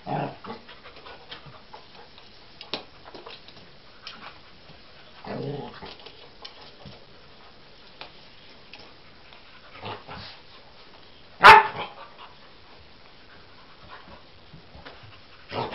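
A small dog barking in short single bursts a few seconds apart while it plays with its toys; the loudest and sharpest comes about two-thirds of the way through.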